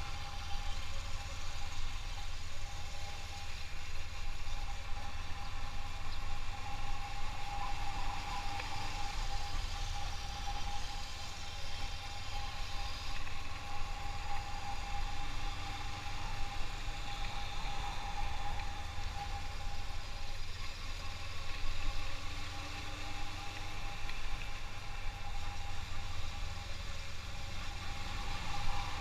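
Motorcycle on the move at a steady pace: the engine is running and wind rumbles on the microphone, with a steady thin whine over the top.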